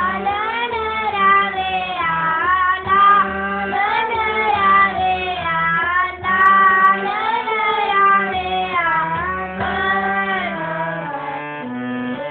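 A young boy singing kirtan, a devotional hymn, to his own harmonium accompaniment. The reeds hold steady notes and chords beneath his gliding melody.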